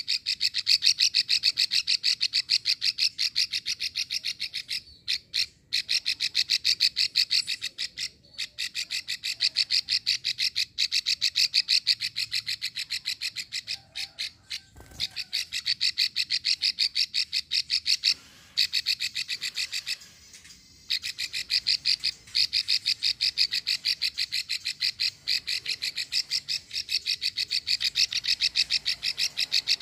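Female plain prinia (prenjak sawah) giving its long chattering 'klik' call: long runs of rapid, dry, evenly repeated notes, broken by a few short pauses.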